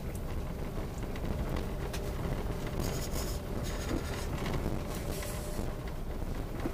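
A moving vehicle's engine and road noise: a steady low rumble, with brief hissing swells about three and five seconds in.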